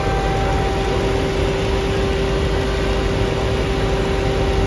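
Dodge Charger Hellcat Redeye's supercharged 6.2-litre HEMI V8 idling with the hood open: a steady low rumble with a steady whine over it.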